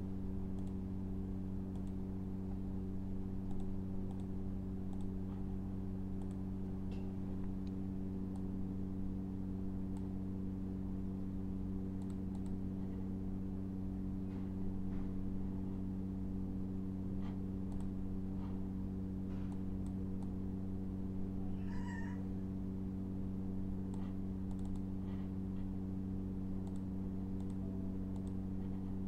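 A steady low electrical hum, with scattered soft clicks of a computer mouse and keyboard as the program is operated. About three-quarters of the way through, one brief higher-pitched sound is heard.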